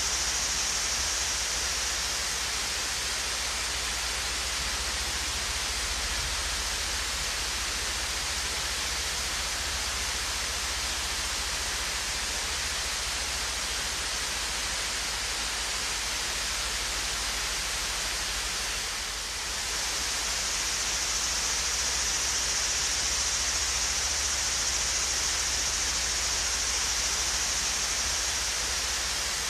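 Swayze Falls waterfall: water falling and splashing in a steady, even hiss, dipping slightly for a moment about two-thirds of the way through.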